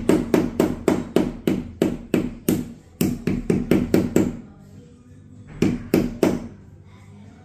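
Quick repeated hammer blows, about three to four a second, pausing about four seconds in, then three more blows. Background music runs underneath.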